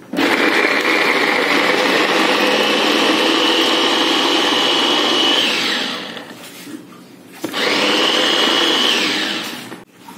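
Small electric mini food chopper chopping shallots and garlic, run in two bursts: about five seconds, then after a short pause about two more. Its high motor whine winds down at the end of each burst.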